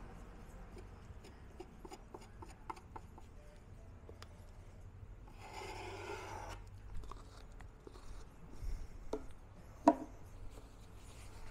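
Putty knife scraping and spreading wood filler along a wooden speaker cabinet's edge: a run of light scrapes and small ticks, with a longer scrape lasting about a second midway. A single sharp knock stands out near the end.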